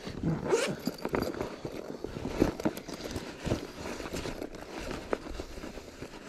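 Footsteps and rustling: irregular crunches and scrapes on the ground, with clothing brushing.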